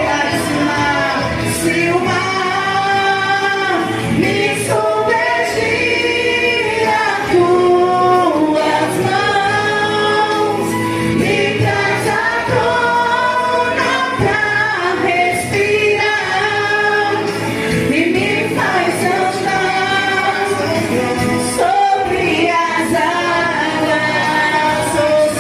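Christian worship song: voices singing long, held notes together over musical accompaniment, at a steady level.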